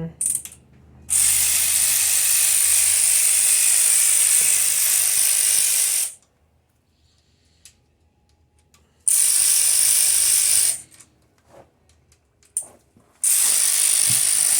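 Bauer cordless impact wrench running in three long bursts of about five, two and three seconds, with short spurts between, loosening the rocker arm bolts on a 5.3 LS V8.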